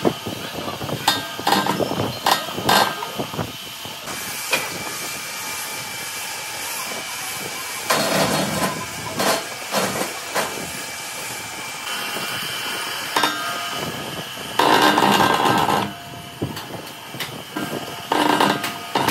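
Lathe boring out the hub of a four-bladed ship propeller, the cutting tool running steadily through the metal with a faint high whine, broken now and then by louder stretches of metallic clatter.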